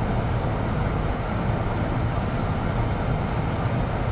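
Steady cabin noise of a car driving on snow-covered streets: a low road and engine rumble with a constant hiss.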